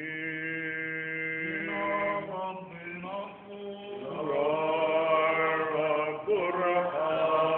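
Orthodox liturgical chant: voices singing a slow melody over a steady held drone note.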